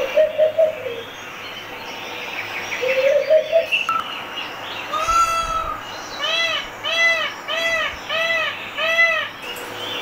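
Bird calls played back through a TV speaker: a short wavering call near the start and again about three seconds in, then from about five seconds in a peacock calling, one longer call followed by five short arched calls about 0.6 seconds apart.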